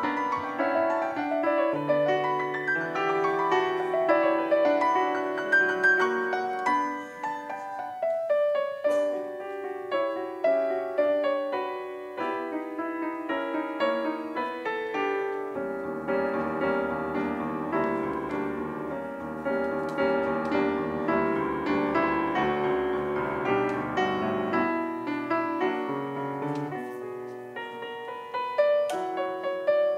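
Solo grand piano playing a steady stream of notes. Deeper bass notes come in about halfway through and drop out again a few seconds before the end.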